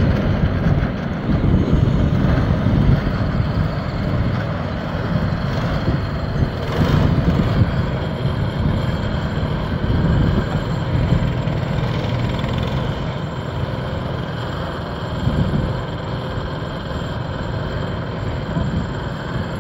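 Engines of small youth dirt-track race cars running as several cars lap the track, a steady mechanical drone with small swells as cars pass.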